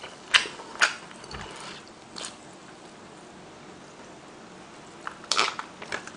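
A man drinking from a plastic mug, with a few gulping and swallowing sounds in the first two seconds, then a quiet stretch and a short cluster of sharper mouth and mug sounds near the end as he lowers it.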